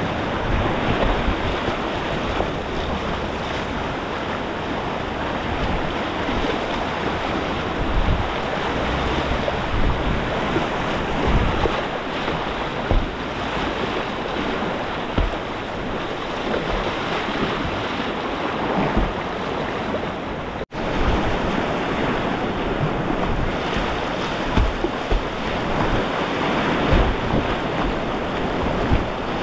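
Rushing whitewater of a river rapid heard from a kayak, a steady churning rush with low thumps of wind buffeting the camera microphone. The sound cuts out for an instant about two-thirds of the way through.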